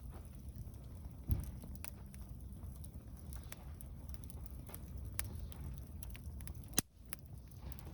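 Wood campfire crackling, with scattered small pops and two sharper snaps, about a second in and near the end, over a low steady rumble.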